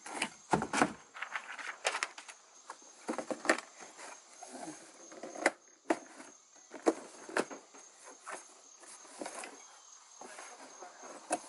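A cardboard box being handled and opened by hand: irregular knocks, scrapes and rustles of the cardboard flaps. Behind it runs a steady, high, pulsing insect chirp.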